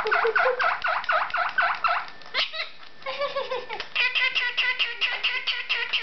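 Pet parrot calling in a fast run of repeated squawky notes, about five a second: the rapid 'gua gua gua' the owner calls its vibrate mode. After a short break about two seconds in, it gives a falling call and then a faster pulsing trill.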